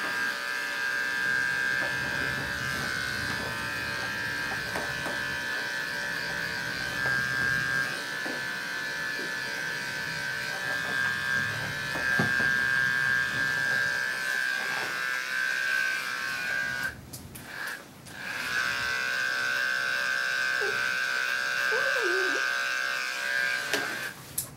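Andis Endurance detachable-blade dog clipper running with a steady high hum as it clips a dog's coat. It stops for about a second and a half past the middle, runs again, and stops just before the end.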